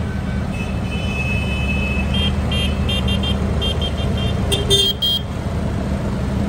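Diesel tractor engines running steadily as the tractors drive slowly past. Over them a high-pitched horn gives a longer toot, then a string of short toots, loudest about five seconds in.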